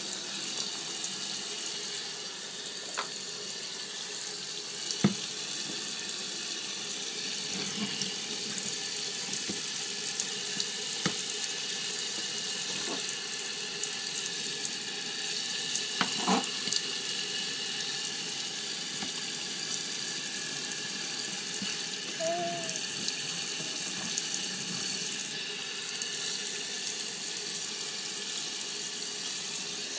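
Tap water running steadily into a sink basin, with a few sharp knocks against it, two of them standing out about five and sixteen seconds in.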